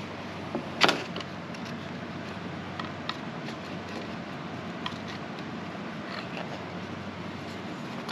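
Handling noise as a steel vent window frame and its glass are worked apart by hand: a few light clicks and one sharper knock about a second in, over a steady background hum.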